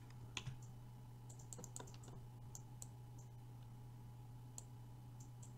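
Faint, scattered clicks of a computer mouse being worked, a few irregular ones every second or so, over a steady low electrical hum.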